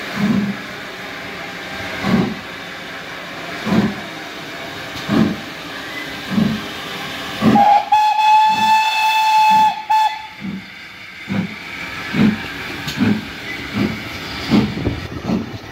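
GWR Castle-class four-cylinder 4-6-0 steam locomotive Clun Castle starting away with its train: sharp exhaust beats over a steady hiss of steam, coming faster as it picks up speed. About halfway through, its steam whistle sounds one long blast of about two seconds, the loudest sound.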